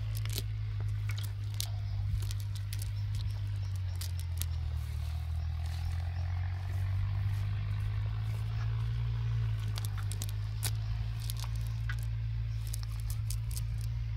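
A steady low drone runs throughout, with scattered clicks, crackles and rustles as a nylon fishing net and the leaves and debris caught in it are picked over by hand.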